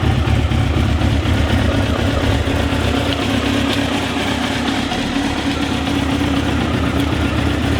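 Suzuki GSX-R SRAD inline-four motorcycle engine idling steadily just after a cold start. The owner thinks it has flooded a little.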